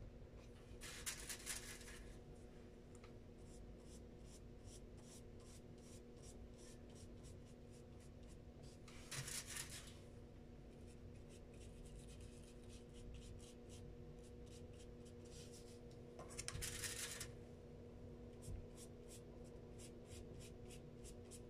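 Faint scratchy strokes of a wet paintbrush dabbing and brushing over paper, many in quick succession. Three short, louder scrubbing bursts come about a second in, around nine seconds and around sixteen seconds, as the brush works marker ink off the crinkled aluminium-foil palette.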